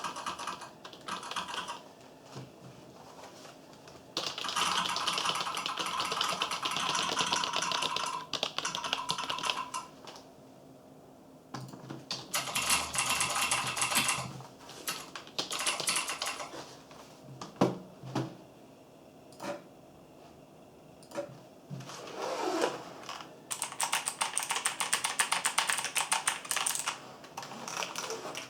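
Typing in several fast bursts, each keystroke giving a mechanical-keyboard switch click played by the Mechvibes app, which adds Cherry MX-style switch sounds to an ordinary keyboard. There are four main runs of rapid keystrokes, with a few single clicks and short pauses between them.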